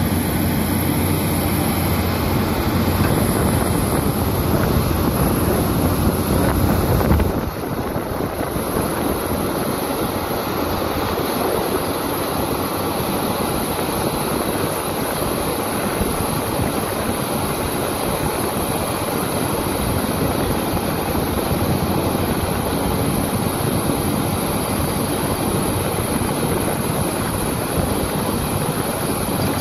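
Caterpillar hydraulic excavator's diesel engine and hydraulics working steadily while it loads earth into a dump truck. The deep engine hum drops suddenly about seven seconds in.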